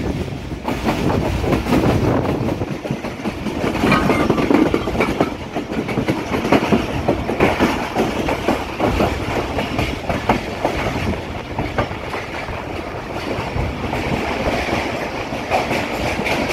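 Pakistan Railways passenger train running along the track, heard from aboard the moving coach: a steady rumble with a rapid clatter of wheels over the rail joints.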